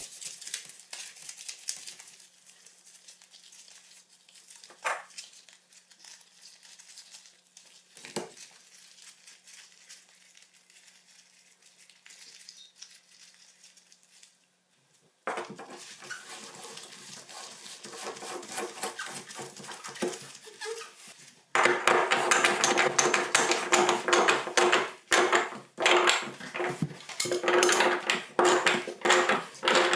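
Work noises from installing a bathtub drain: metal parts and tools clinking, clicking and scraping. They are faint and sparse at first, change abruptly about fifteen seconds in, and become louder and busier from about twenty seconds in.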